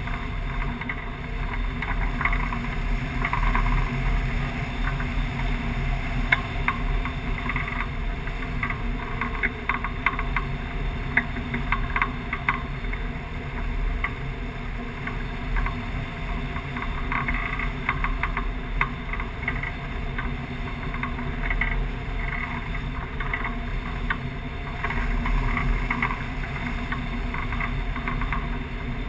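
Rushing airflow over a hang glider in flight, heard as steady wind noise on a wing-mounted camera, with frequent small ticks and rattles throughout.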